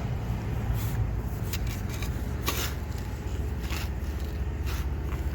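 Shovel blade digging and scraping into soggy soil, about five short strokes roughly a second apart, over a steady low rumble.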